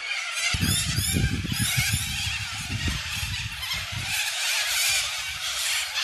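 A large flock of corellas screeching and squawking together in a harsh, continuous din. A low rumble sits underneath from about half a second in until about four seconds in.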